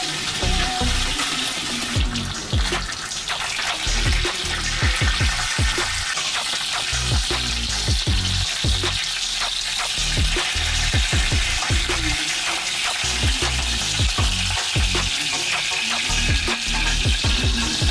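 Tilapia frying in hot oil in a pan, a steady sizzle, with repeated clicks and scrapes of metal tongs against the pan as the fish pieces are turned and lifted out.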